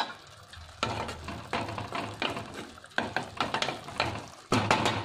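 Spatula scraping and stirring in a nonstick pan in a run of separate strokes, about one every half second to a second, while tomato-onion masala with two eggs cracked into it sizzles over medium heat.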